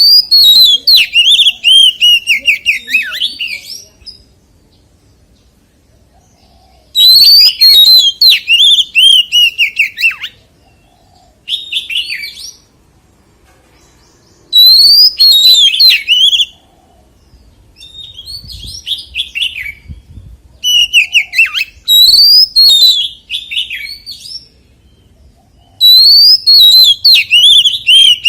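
Oriental magpie-robin singing: loud, varied whistled phrases full of quick slurs and falling notes, delivered in bursts of a few seconds with short pauses between them.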